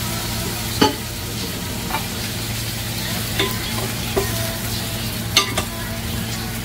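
Ground spice paste sizzling as it is sautéed in a pot with lemongrass, lime leaves and galangal, while a wooden spatula stirs it and knocks sharply against the pot about six times, over a steady low hum.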